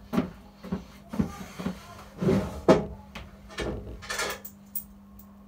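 A run of uneven knocks and thuds, about eight in all, with a steady low hum coming in about two seconds in.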